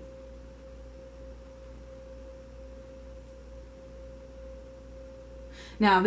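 A steady pure tone held at one unchanging pitch, with a faint low hum beneath it.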